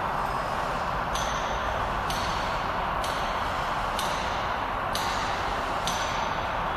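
Steady mechanical hum with a light, high-pitched metallic tick repeating about once a second, six times.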